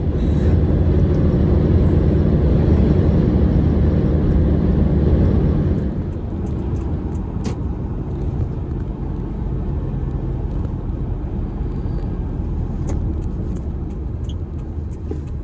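Road and engine noise inside a moving car: a steady low rumble that drops noticeably about six seconds in and stays quieter.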